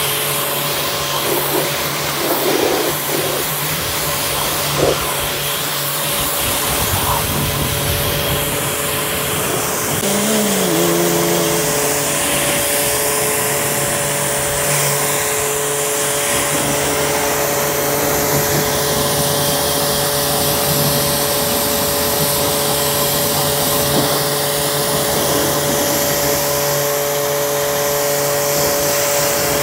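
Starq AWP 2.8 electric pressure washer running at full pressure, its motor humming steadily under the hiss of the water jet spraying against the car's bodywork and glass.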